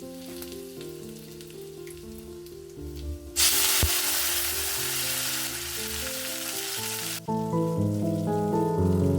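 Hot oil in a pan sizzling loudly as chopped tomato goes into the tempering, starting about three seconds in and cutting off suddenly some four seconds later. Before it there are faint crackles from the oil, and a music track with a simple melody runs throughout, louder after the sizzle stops.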